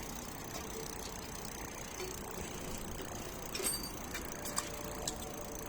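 Bicycle being worked on by hand: a few short, sharp clicks over a steady background hiss.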